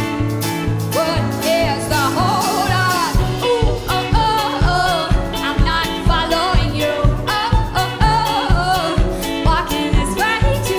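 Live pop song with a female lead vocal singing over a band. Pulsing bass notes carry the start, and a steady drum beat comes in about three seconds in.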